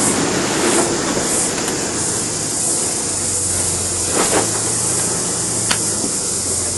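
Nissan Patrol 4WD engine running at low revs as it crawls over tree roots in a dry creek bed, a steady low hum under a hiss. A crack sounds about four seconds in, and a sharp click a second and a half later.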